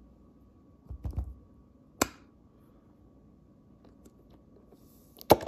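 Handling sounds of a squishy rubber egg toy being squeezed and pressed against a countertop: a muffled bump about a second in, a sharp click about a second later, and a louder click with a smaller one right after near the end.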